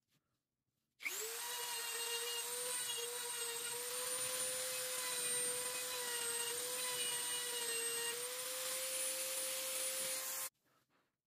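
Small high-speed rotary tool with a burr bit carving a beechwood knife handle: it spins up about a second in, runs with a steady high whine that dips slightly in pitch as it bites the wood, and cuts off suddenly near the end.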